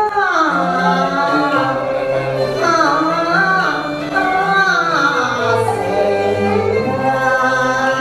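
A woman singing a slow, sliding melody with vibrato into a microphone, over steady instrumental accompaniment.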